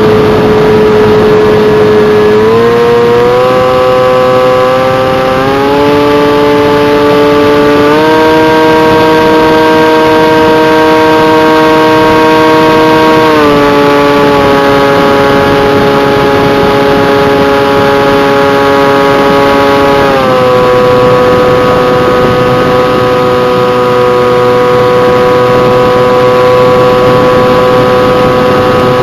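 Electric motor and propeller of a Bixler RC plane whining steadily in flight, with a rushing noise underneath. Its pitch steps up three times in the first eight seconds or so, then steps down twice with throttle changes.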